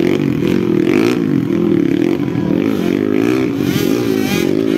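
Motocross dirt bike engine revving, its pitch rising and falling again and again as the rider works the throttle to drive through deep mud.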